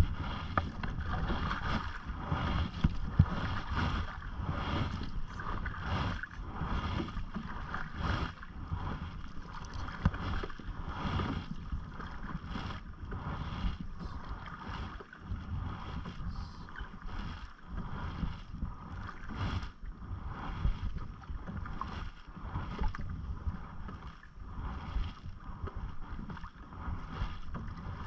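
Canoe paddling: the paddle blade dips and pulls through lake water, with frequent small splashes and water lapping at the hull, over a steady low rumble of wind on the microphone.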